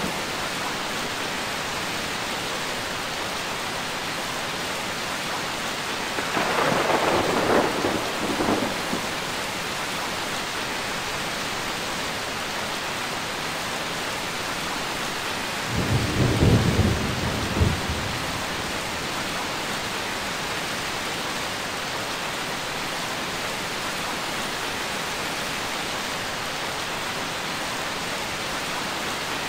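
Steady rain with two rolls of thunder: a crackling one about six seconds in and a deeper, louder rumble about sixteen seconds in that ends in a sharp crack.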